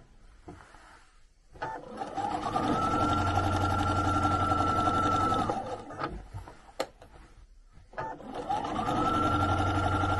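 Electronic sewing machine stitching in two runs of a few seconds each. Each run winds up to speed with a rising whir, then holds steady. In the gap between the runs, a few light clicks sound while the panel is turned.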